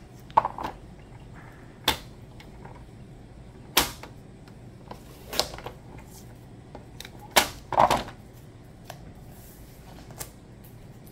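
Paper trimmer being worked to cut cardstock: about eight sharp clicks and knocks spread through, a couple of them drawn out into short scrapes.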